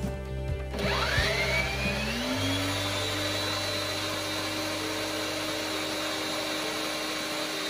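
Electric stand mixer with a whisk attachment beating cake batter: the motor whine starts about a second in, climbs in pitch as it speeds up, then holds a steady high whine.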